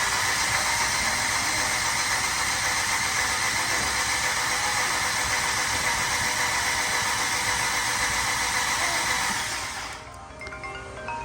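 Fiat MultiAir engine cranking on its starter motor with a steady whine, not catching, then stopping about nine and a half seconds in. This is a restart attempt after the oil-starved MultiAir brick has been primed with oil.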